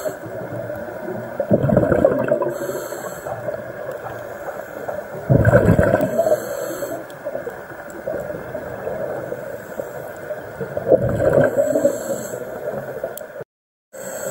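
Underwater sound of scuba breathing through a regulator: three bursts of exhaled bubbles rushing, each followed at once by the short hiss of an inhale through the regulator, over a steady watery background. The sound cuts out briefly near the end.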